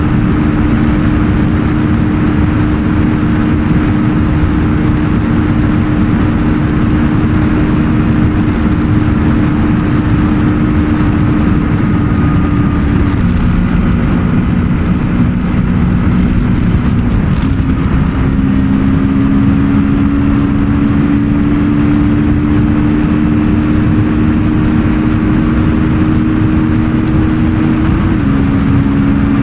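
A Kawasaki Ninja 650's parallel-twin engine accelerating at high motorway speed, about 150 to 190 km/h, under heavy wind and road noise. The engine note steps down a little before halfway and again near the end, and climbs slowly between.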